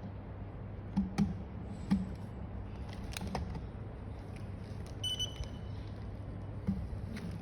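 Scattered light knocks and clicks of an item being handled during unboxing, with a short electronic beep about five seconds in, over a steady low hum.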